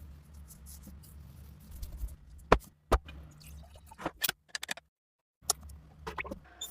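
Several sharp knocks and clicks over a low steady hum, with a short dropout to dead silence about halfway through.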